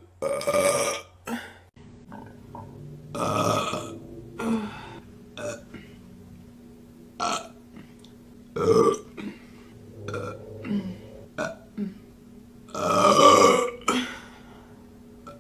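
A woman burping again and again: several long, loud burps with shorter, softer ones between them, the longest and loudest near the end.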